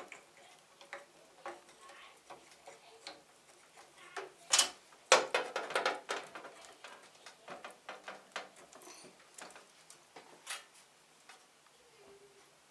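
Scattered light clicks and knocks of tools and metal and plastic parts being handled on a 3D printer while a stepper motor mount is twisted into line. The loudest knocks come about four and a half and five seconds in.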